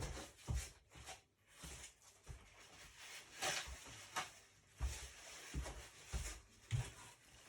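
Intermittent rustling and soft knocks from hands handling a paper tissue and small engine parts on a workbench. The clearest rustle comes about three and a half seconds in.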